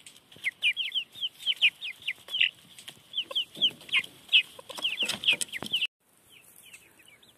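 Young chickens peeping: a steady stream of short, high, falling peeps, several a second. The sound cuts off abruptly about six seconds in, leaving only a few faint peeps.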